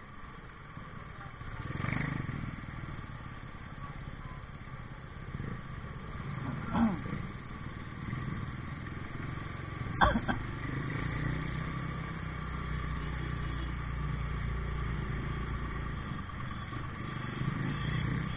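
Motorcycle engine running in slow traffic, a steady low rumble with road noise around it. A sharp knock comes about ten seconds in, and a short higher-pitched sound a few seconds before it.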